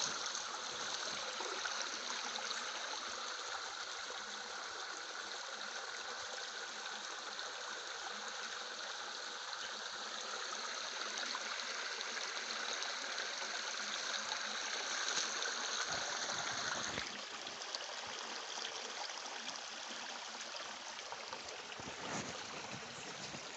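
Steady rushing of water from a stream at a waterfall. About 17 seconds in, a short low rumble comes just before the water's tone shifts suddenly, and another brief rumble follows near 22 seconds.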